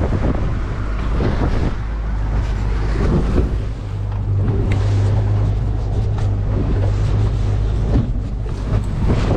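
Boat motor running with a steady low hum, stronger through the middle seconds, with wind buffeting the microphone.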